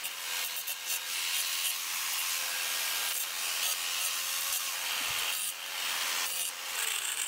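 Angle grinder running steadily, its spinning wheel grinding the sharp cut edges of a steel bracket smooth, with a faint steady motor whine under the rough grinding hiss.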